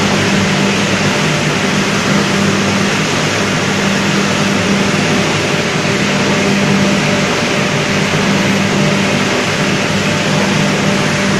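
Automatic wet blasting machine spraying a water-and-abrasive slurry onto parts: a loud, steady hiss of spray with a low machine hum underneath, the hum fading for a few seconds in the second half.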